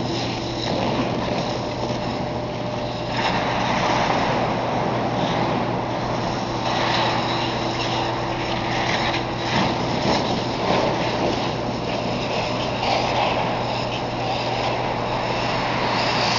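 Steady ice-rink ambience: a constant low hum under a noisy rushing, with scattered short scrapes of skate blades on the ice.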